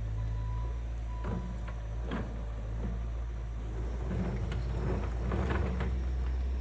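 Skid steer diesel engine running steadily under load, with knocks and rattles from the machine working that grow busier in the second half. A backup alarm beeps a couple of times in the first second or so.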